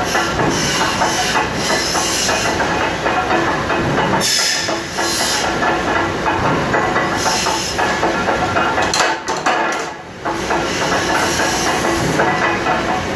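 Metal-cutting machinery running: a continuous clatter of rapid small impacts with a hiss, easing briefly about four seconds in and again about ten seconds in.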